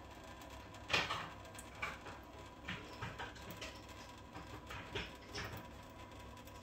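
A cat lapping at a thin trickle of tap water running into a stainless-steel sink; the water splashes and patters into the basin in soft, irregular ticks, one or two a second.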